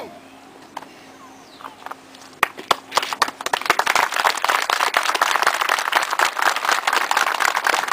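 A brief loud shouted call at the very start, then a crowd begins clapping: scattered claps about two and a half seconds in, swelling into steady applause.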